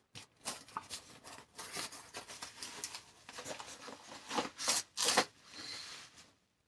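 Packaging being opened by hand: a yellow padded mailer and cardboard box rustling, crinkling and tearing in irregular scrapes, loudest about four to five seconds in.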